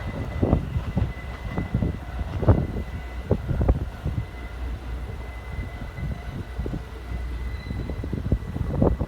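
Keikyu electric train running past on the line, a steady rumble with irregular knocks of the wheels over rail joints.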